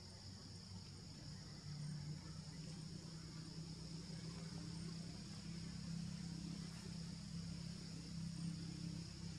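Faint outdoor ambience: a steady high insect drone, joined about two seconds in by a low steady hum.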